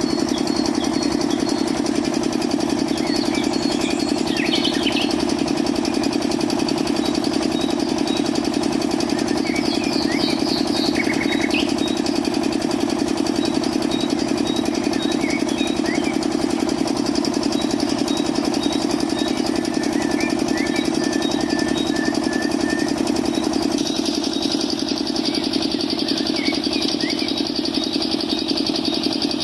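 A small motor running steadily with a fast, even hum, with short high chirps scattered over it.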